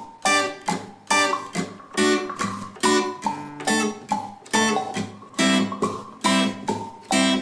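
Background music: acoustic guitar strummed in a steady rhythm, a chord about every half second to second, each one ringing out and fading.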